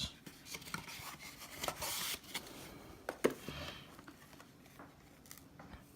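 Hands handling Zippo lighters and their presentation boxes: soft rubbing and rustling with a few light clicks, one sharper click a little past the middle.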